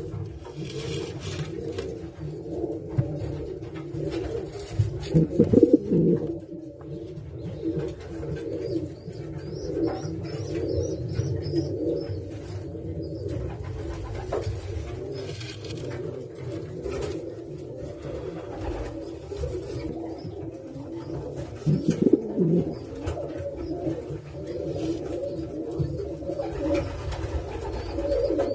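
Racing pigeons cooing in a loft, an unbroken chorus of overlapping coos with louder swells about five seconds in and again past twenty seconds.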